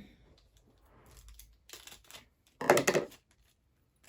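Plastic puzzle box and its pieces being handled, with faint rustling and small clicks. A short, loud scraping or rattling burst comes about two and a half seconds in.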